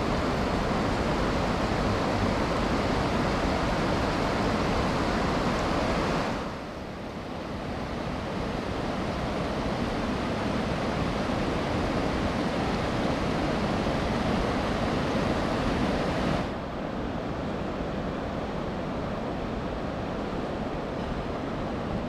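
Steady rush of river water pouring over a low weir, with wind rumbling on the microphone. The rush steps down abruptly, becoming softer and duller, about six seconds in and again about sixteen seconds in.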